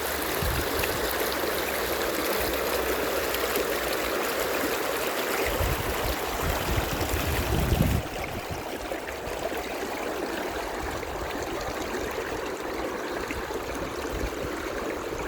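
Thermal spring water running steadily. About eight seconds in, the sound changes abruptly to a slightly quieter, duller flow.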